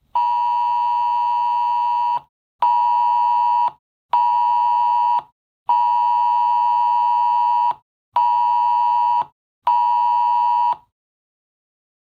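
A cell phone's Wireless Emergency Alert attention signal announcing an incoming Presidential Alert test: a loud, steady two-tone beep near 1 kHz. It sounds in a long-short-short pattern (about two seconds, then two one-second beeps), played twice.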